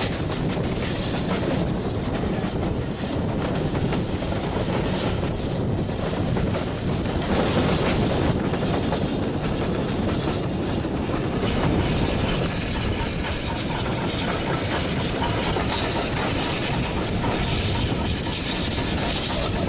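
Railway passenger carriage running along the track: a steady rumble and rattle of the coach on the rails, with a brighter rush of air coming in a little past halfway.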